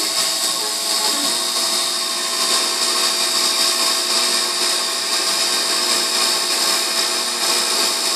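Emco Compact 5 CNC lathe running its facing cycle, the tool taking light 0.4 mm cuts across the end face of a 6082-T6 aluminium part: a steady machine whine of several held tones over a cutting hiss.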